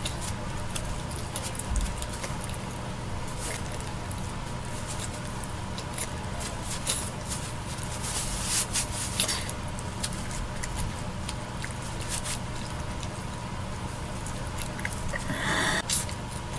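Steady low hum with scattered clicks and crackles, and a brief pitched sound near the end.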